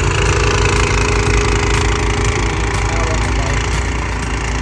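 Snow blower's engine running steadily while it is pushed through snow.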